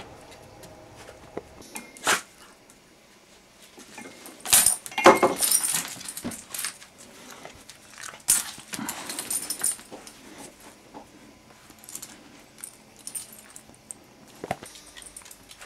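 A leash being handled and clipped onto a small wire-haired dog's collar: rustling and metal clinks, with two longer bouts of rustling about four and eight seconds in and a sharp click near the end.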